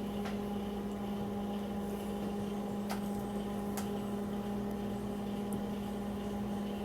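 Microwave oven running with a steady hum, with a few faint clicks.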